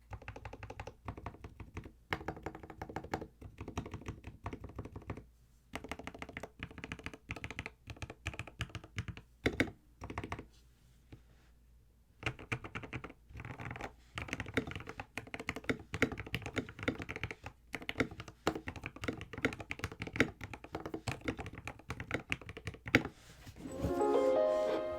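Typing on an Epomaker TH66 custom mechanical keyboard, with quick runs of thocky keystrokes and a short pause about halfway through. Music comes in near the end.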